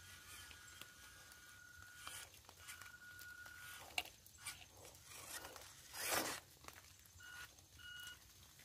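Small electric motor of a WPL C24 RC crawler pickup whining high and steady in on-off spurts at low throttle, with its tyres crunching and scraping over dirt, twigs and roots; a louder scrape about six seconds in.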